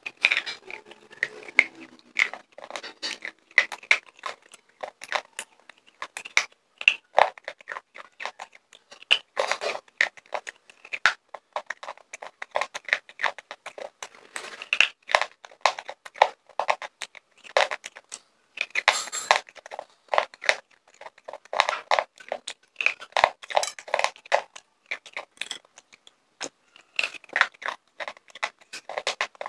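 Slate pencil being bitten and chewed right against a microphone: a dense run of dry crunches and sharp clicks.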